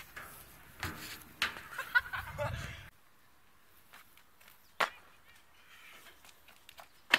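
Unaccompanied outdoor camera sound of a person running and jumping on asphalt: faint scuffs and distant voices in the first few seconds, then a single sharp knock about five seconds in.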